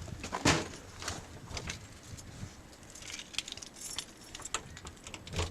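Keys jangling, with scattered clicks and a sharp knock about half a second in, and a run of small metallic jingles a few seconds later.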